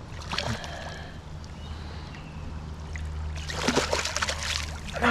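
Water splashing around a landed rainbow trout held at the stream's surface. There is a short splash about half a second in and a longer, louder spell of splashing from about three and a half seconds in, over the steady rush of the stream.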